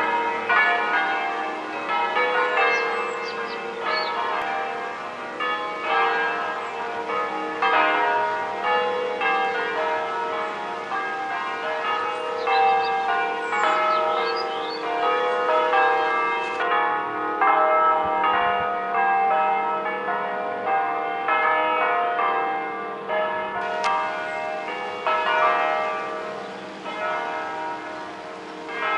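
Several church bells of different pitches ringing together in a continuous peal, their strikes overlapping, over a steady low hum.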